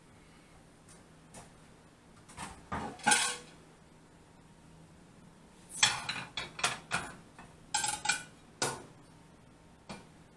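Dinner plates clattering as they are taken out and set down on a gas stove's metal grate and on each other. A few knocks come about two to three seconds in, then a quick run of clinks from about six to nine seconds.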